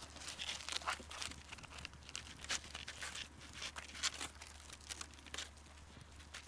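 Wood fire crackling, with irregular sharp pops and snaps over a light hiss.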